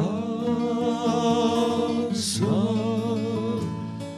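A solo voice singing two long held notes with vibrato over a quiet accompaniment, with a short break between them about two seconds in.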